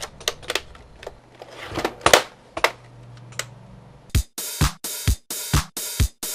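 Clicks and knocks of hands handling a Roland TR-505 drum machine and pressing its buttons, then about four seconds in the TR-505 starts playing a drum pattern: a steady beat of kick and bright cymbal hits, about two a second.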